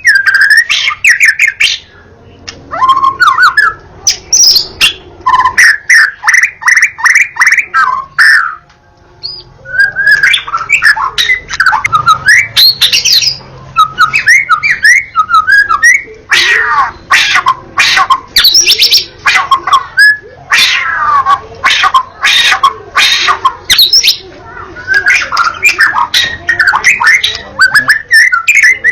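White-rumped shama (murai batu) singing without letup: a rich, varied song of rapid whistled phrases, sliding notes and fast runs of sharp notes, with a short pause about nine seconds in.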